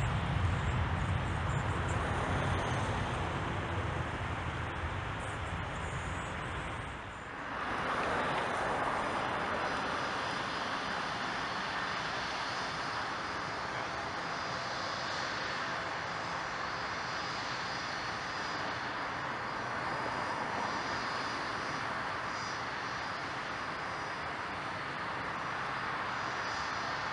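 Jet engines of an Embraer ERJ-135/145 on the runway give a deep rumble that drops away about seven seconds in. Then a Bombardier Challenger 604 taxis close by, its two rear-mounted turbofans running with a steady, higher-pitched jet noise.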